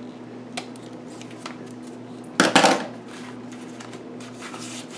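Scissors giving a couple of light snips through card stock to cut a mitred corner, then a louder brief clatter about halfway through as the scissors are put down on the table.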